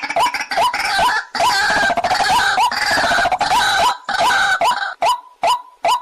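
White-breasted waterhen calling: a monotonous series of short rising notes, about two and a half a second, broken in the middle by a harsh, loud bout of croaking before the even notes resume.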